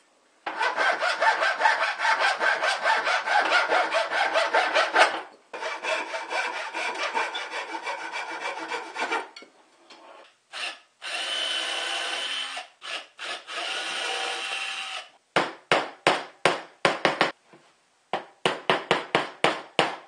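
Thin wooden dowels being cut with a hand saw: rapid sawing strokes for about nine seconds. Then come two short spells of a steadier, even sound, and near the end slower, separate strokes.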